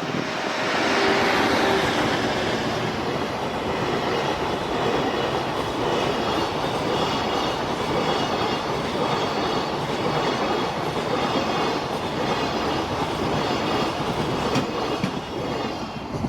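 Freight train hauled by the EF81 404 electric locomotive passing close by: a steady, loud rumble of wagon wheels on the rails, with a faint high ringing from about six seconds in. It eases off slightly near the end.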